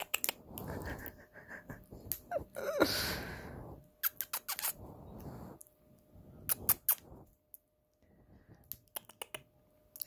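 Rustling on bedding, with a brief squeak about two and a half seconds in, then several quick runs of sharp clicks as a small pet bird moves about and steps onto a hand.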